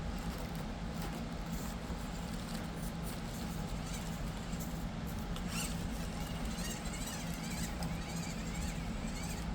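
Micro RC crawler's brushed motor and gears whining at crawl speed, the pitch wavering up and down, with small scattered clicks and scrapes from the tires on the course.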